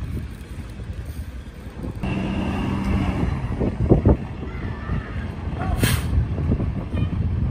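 A fire engine's diesel engine runs as the truck pulls slowly past, and a short air-brake hiss comes about six seconds in.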